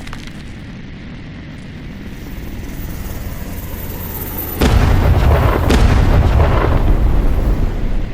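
Added destruction sound effect of a house being crushed: a low rumble builds slowly, then about four and a half seconds in a loud crash of crumbling, crackling debris sets in and goes on to the end.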